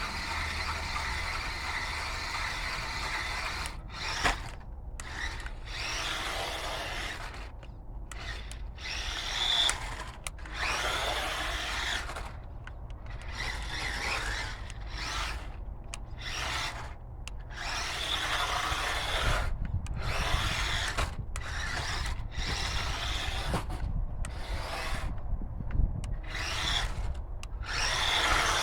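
Electric drive motor and gears of a DEERC 9310 1:18-scale 4WD RC truck whining in repeated throttle bursts with short gaps between them as it drives over rough, rooty ground.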